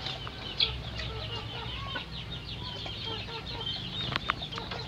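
A crowded flock of young Indonesian kampung chickens cheeping continuously in the coop, many short high chirps overlapping. A couple of sharp clicks come about four seconds in.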